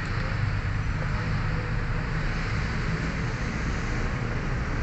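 Steady background noise: a low rumble with an even hiss over it, with no distinct clicks or knocks.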